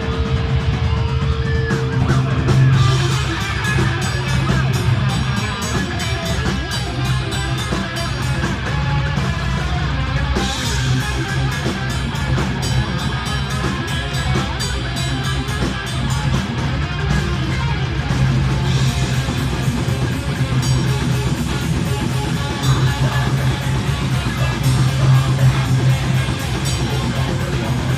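Live heavy metal band playing, recorded on a phone: distorted electric guitars and a drum kit. A held guitar chord opens, then about two and a half seconds in the full band comes in with fast drumming and crashing cymbals.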